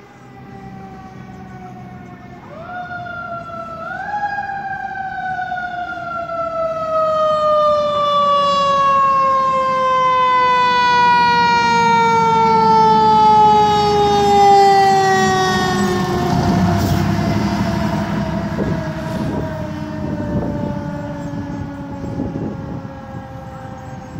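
Fire engine siren wailing as the engine approaches. Its pitch falls slowly throughout and is pushed back up twice a few seconds in, over the truck's engine rumble. Past the middle, a rush of noise and some clatter come in as the siren dies away.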